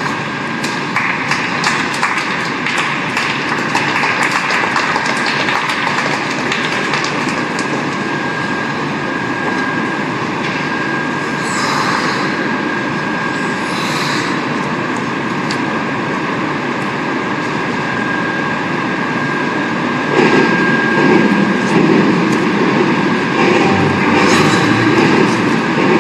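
Steady ice-rink ambience: a rumbling hiss with a faint steady whine, scattered clicks in the first seconds, and a louder stretch from about twenty seconds in.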